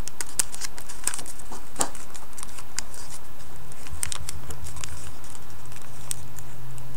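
Origami paper crinkling, with irregular small clicks and crackles as fingers crease and squash-fold it.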